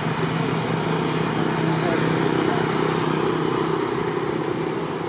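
A motor vehicle's engine running with a steady hum, which fades about four seconds in.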